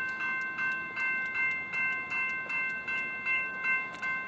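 Railroad crossing warning bell ringing, struck about three times a second, as the crossing signals warn of an approaching train.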